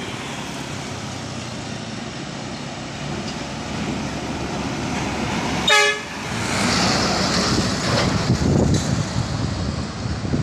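A coach bus gives one short horn toot about six seconds in. Its engine and tyre noise builds as it approaches and stays loud as it passes close by.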